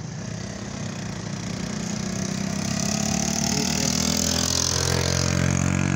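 A car's engine and tyres on the road, growing steadily louder over the first few seconds as it comes close, then holding.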